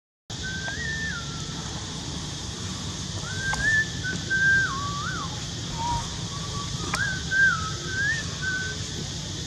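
Whistling: a slow run of held notes that step and slide up and down in pitch, over a steady outdoor background hiss.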